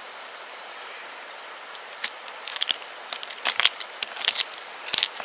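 Crunching and clicking as an eel-tailed catfish's neck is broken back and its head cut with a knife on a wooden cutting board. The crunches come scattered from about two seconds in, over a steady high background hiss.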